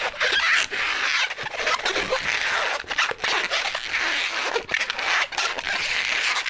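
Latex modelling balloon being twisted into a row of small bubbles between the hands, the rubber rubbing against itself and the fingers in a continuous scratchy, broken-up rubbing.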